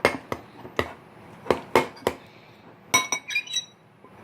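Utensil clinking against a glass bowl while scraping sticky slime off its sides: a string of sharp clinks, the last one about three seconds in ringing briefly.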